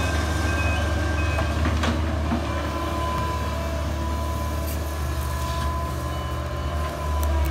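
Case crawler excavator's diesel engine running steadily as the boom swings and lifts, a low hum with a thin steady whine over it.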